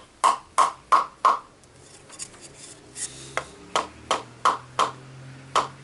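Runs of sharp taps, about three a second, as the impeller is knocked onto the shaft of a GAZelle heater fan motor, with a faint low hum underneath in the second half.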